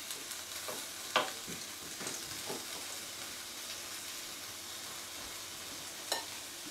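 Chicken pieces frying in a pan with a steady sizzle, and a couple of light utensil clicks, one about a second in and one near the end.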